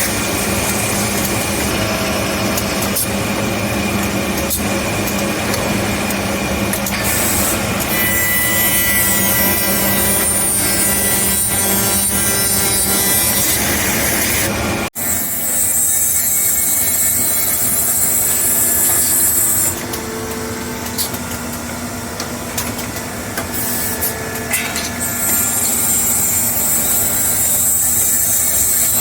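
Knife-handle drilling and slotting machine at work: a continuous noise of cutting and sawing, with a brief dropout about halfway through, after which a high hiss starts and stops.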